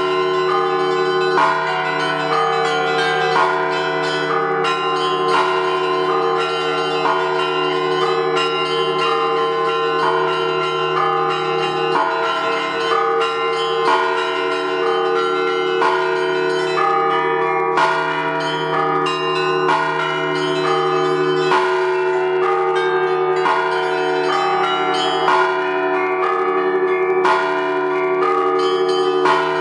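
Russian Orthodox-style church bell ringing on many bells at once. Small bells are struck in quick, continuous patterns over the long, steady ringing of larger bells.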